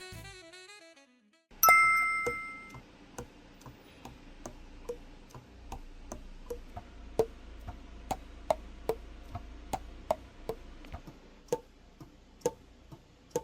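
A sharp ding that rings and dies away, then a string of irregular light clicks, some with a short pitch to them, a couple a second.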